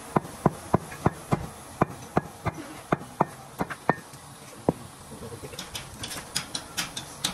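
Brake caliper being knocked and handled: sharp metal taps about three a second for the first few seconds, then thinning to lighter, higher clicks near the end.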